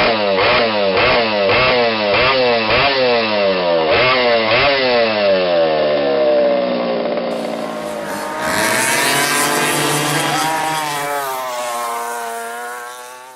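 Small go-kart engine revving in quick repeated blips, its pitch rising and dropping about twice a second, then dying away in a long falling note. After a cut, a kart engine rises and settles to a steady note before fading out at the end.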